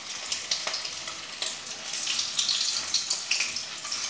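Chicken kofta balls deep-frying in hot mustard oil in a kadhai: a steady sizzle dotted with fine crackles, a little louder from about halfway through.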